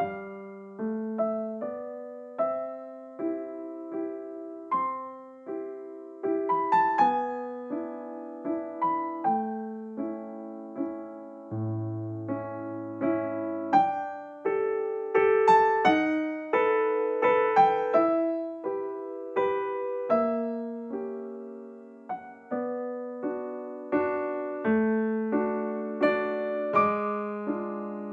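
Background music: a gentle piano melody with chords, each note struck and fading.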